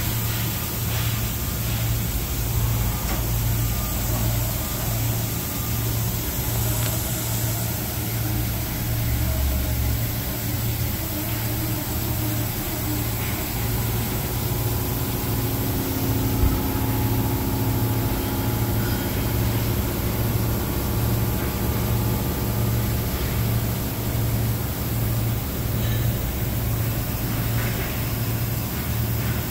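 Hurco VMX 64 CNC vertical machining centre running under power, with a steady low machine hum that pulses evenly. A higher whine joins about halfway through.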